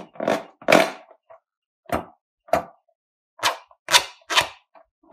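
Hands squeezing and rubbing a slime-filled latex balloon: about eight short, irregularly spaced rubbing noises.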